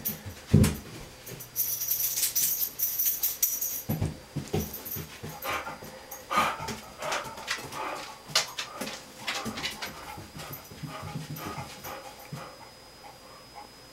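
Dog nosing and pushing at a bathroom door: a loud thump about half a second in, a high rattle for about two seconds, then a run of small clicks, scratches and soft whimpers.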